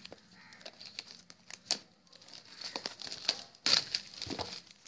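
Clear plastic shrink-wrap being peeled off a phone box and crinkled in the hands: scattered crackles, with a louder burst of crinkling about three-quarters of the way in.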